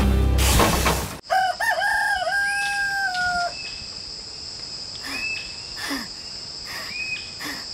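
Music cuts off about a second in, and a rooster crows once: one long call that rises, holds and falls away. A few short bird chirps follow.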